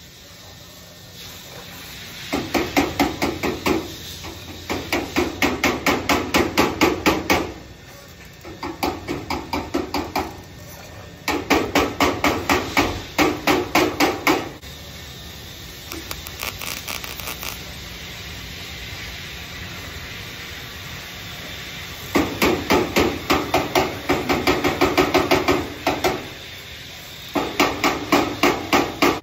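Hand hammer striking a sheet-metal air dam on a car's front end: quick, even blows several a second, in about seven bursts of one to three seconds with pauses between. A steady hum runs underneath.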